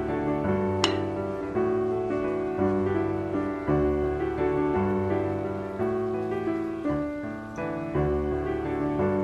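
Background piano music, slow chords changing about every second. One sharp click about a second in.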